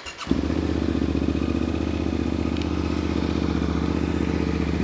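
Yamaha Tenere 700's parallel-twin engine, breathing through a full aftermarket exhaust (Akrapovic header, Camel ADV enduro bend, Scorpion Red Power slip-on can), starts just after the beginning and settles into a steady idle at tickover.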